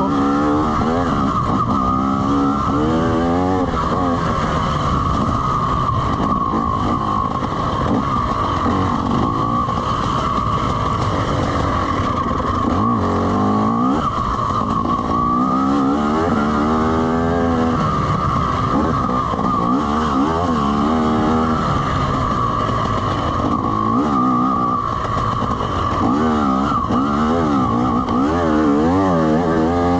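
2020 TM EN300 TPI two-stroke dirt bike engine revving up and down over and over while riding a trail, its pitch climbing and dropping every second or two, over a steady higher drone.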